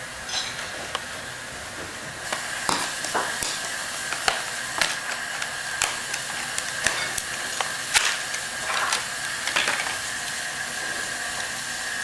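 Scissors snipping and hands working a diecast car out of its plastic blister pack: irregular crinkles, crackles and clicks of stiff plastic, over a steady background hiss.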